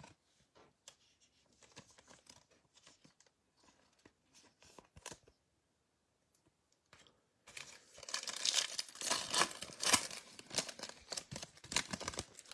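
Faint clicks of trading cards being handled, then from about seven and a half seconds in a foil trading-card pack being torn open by hand, its wrapper crinkling and tearing.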